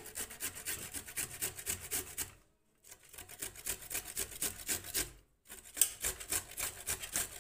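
White radish being grated on a stainless steel box grater in quick, even strokes, about four a second, stopping briefly twice.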